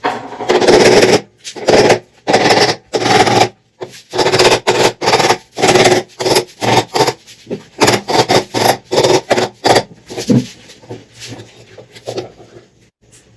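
A power tool run in a quick series of short bursts of a fraction of a second to about a second each, during transmission disassembly, with the bursts thinning out and getting quieter toward the end.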